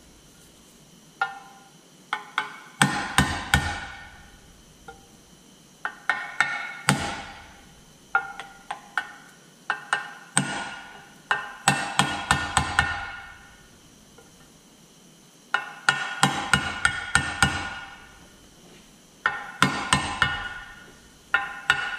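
Hammer striking a steel seal driver to seat a new seal in the upper front cover of a Detroit Diesel 3-53T. Sharp, ringing metallic taps come in bursts of several quick strikes, with short pauses between bursts.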